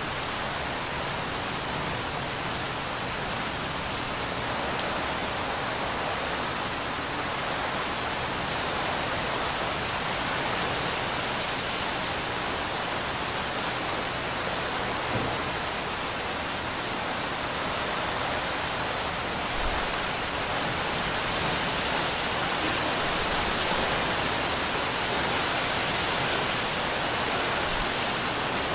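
Steady rain falling on a swimming pool and its surroundings: an even hiss, with a few separate drop ticks here and there.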